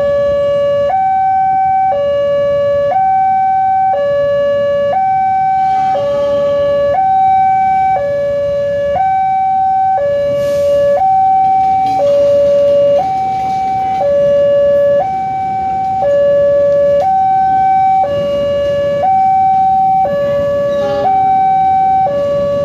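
Railway level-crossing warning alarm sounding its standard two-tone electronic signal, switching between a lower and a higher tone about once a second. A passenger train runs across the crossing behind it, its rumble thickening in the second half.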